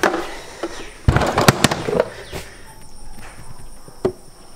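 Knocks and clunks of a plastic cooler being set into an SUV's cargo area and handled, with a quick cluster of sharp knocks about a second in and single ones later.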